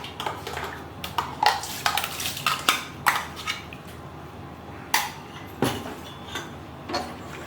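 A spoon knocking and scraping against a cooking pan with irregular sharp clinks while pasta and sauce are mixed.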